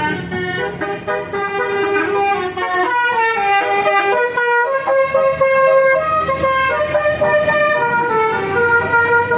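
Bus 'telolet' horn, a multi-tone air horn playing a stepping tune of several notes at once, with a vehicle engine running underneath.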